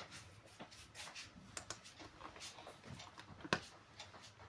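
Quiet room sound with a few soft clicks and one sharper click about three and a half seconds in, from a computer mouse being clicked.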